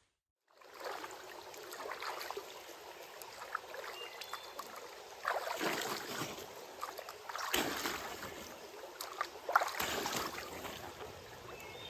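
Stream water running over rocks, a steady rushing with three stronger swells of splashing about 5½, 7½ and 10 seconds in.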